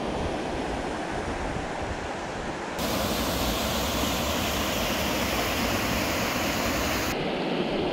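Shallow river rapids rushing over rocks, a steady rush of water. It grows fuller and brighter about three seconds in and drops back near the end.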